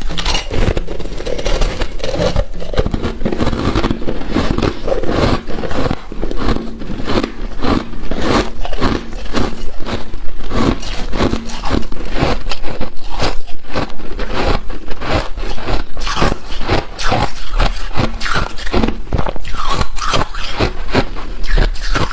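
Freezer frost being scraped and crunched: a dense, unbroken run of crisp crunching strokes, several a second.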